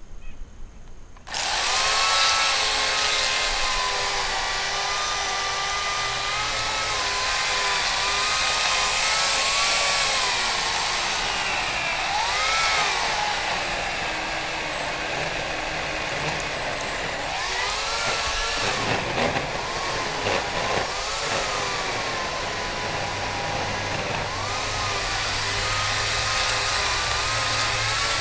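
Electric chainsaw with an 18-inch bar starting about a second in and running continuously while cutting into a 20-inch silver maple trunk. Its whine sags in pitch and recovers several times as the chain bogs under load.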